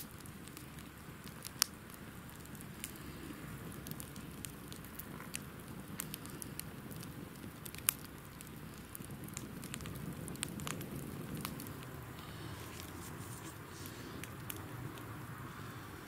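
Wood fire burning down to coals for shashlik, with a low, steady rumble of flames and scattered snaps. Two sharp, louder pops come, one under two seconds in and one about halfway through.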